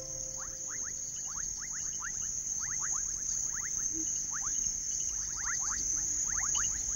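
Savanna insect ambience: a steady high-pitched insect trill, with many quick downward chirps scattered through it, often in twos and threes.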